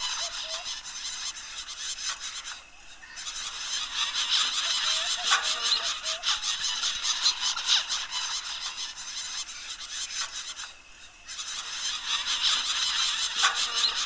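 A flock of zebra finches calling, a dense chorus of many short, overlapping calls that drops away briefly about three seconds in and again near eleven seconds.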